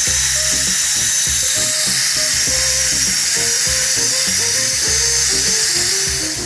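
High-speed dental handpiece (dental drill) whining steadily with a slight waver in pitch as it cuts decay from a child's upper primary front teeth, fading near the end. Background music with a melody of short notes plays underneath.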